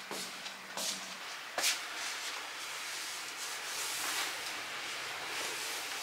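Fabric of an apron rustling and rubbing as it is pulled on, after two light knocks in the first two seconds.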